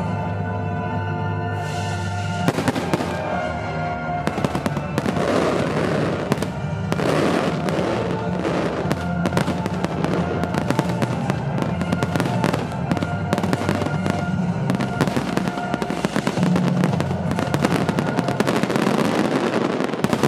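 Aerial firework shells bursting in a dense, continuous barrage of bangs and crackles, starting about two and a half seconds in, with music playing underneath.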